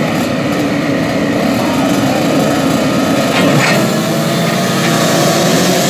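A full start line of small 50cc two-stroke youth motocross bikes running and revving together at the start gate. The result is a steady, high-pitched massed buzz of engines waiting for the gate to drop.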